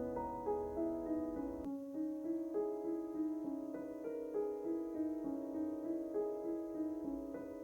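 Background piano music, a gentle melody of note after note; a low rumble underneath stops about two seconds in.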